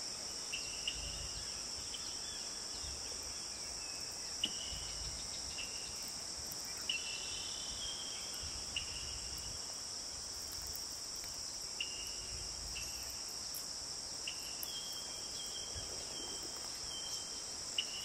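Steady high-pitched insect drone of crickets, with short high chirps scattered through and a few faint low rumbles and ticks.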